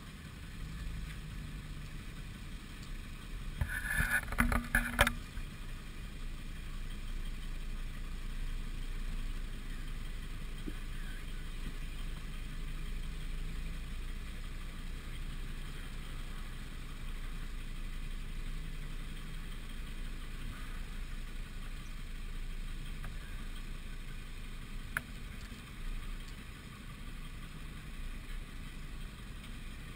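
Lifted 4x4 rock crawler's engine running at low revs as it crawls over rocks, with a short louder burst of revving and clatter about four seconds in.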